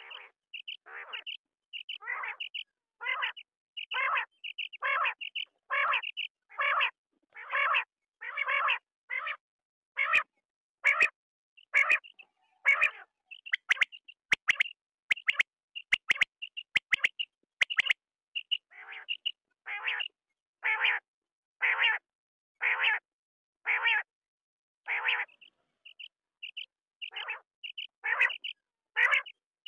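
Quail calling over and over, short raspy calls about one a second with quicker, higher chirps in between. A few sharp clicks come through in the middle. This is a quail lure recording used to call birds in for hunting.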